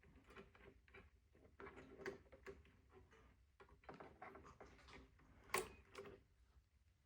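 Faint handling sounds of the small parts of a cassette deck's transport mechanism: light clicks, taps and rustles as a rubber drive belt is worked off by hand, with one sharper click about five and a half seconds in.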